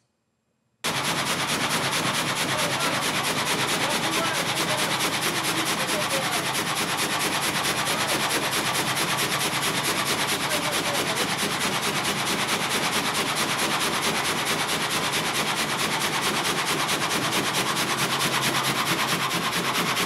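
Vertical log frame sawmill (gang saw) sawing through a log: the reciprocating saw frame runs with a rapid, even rhythm of strokes over a steady machine clatter. It starts abruptly about a second in.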